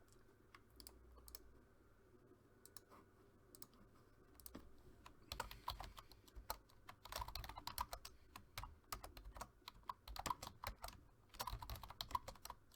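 Typing on a computer keyboard: scattered key clicks at first, then quick runs of keystrokes about halfway through and near the end.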